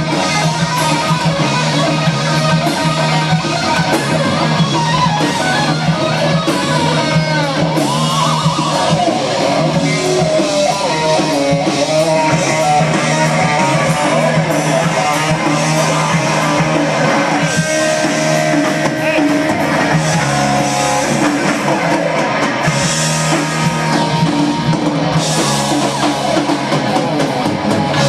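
Live heavy rock band playing an instrumental stretch: a lead electric guitar playing bent notes over bass guitar and a drum kit, loud and continuous.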